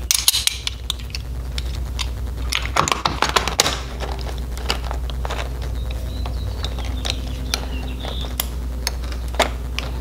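Light metal clicks and clinks of a Kwikset deadbolt's interior thumb-turn half being pressed onto the door and lined up over the tailpiece, busiest near the start and about three seconds in, over a steady low hum.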